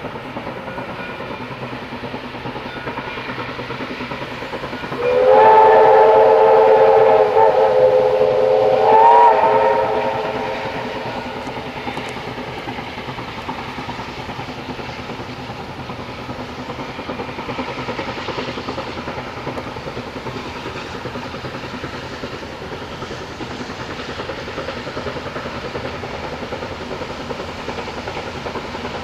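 Steam whistle of NYS&W No. 142, a steam locomotive, blown twice: a long blast about five seconds in, then a shorter one near nine seconds that slides up slightly at its start. Steady low noise runs underneath the rest of the time.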